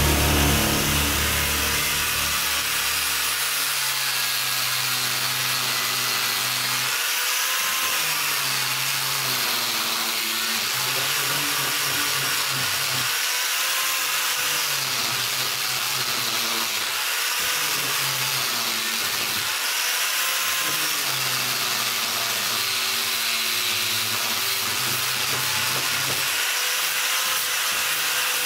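Handheld angle grinder with an abrasive disc grinding the rusty steel head of an old carpenter's hammer, a steady whine and hiss whose pitch dips and recovers every few seconds.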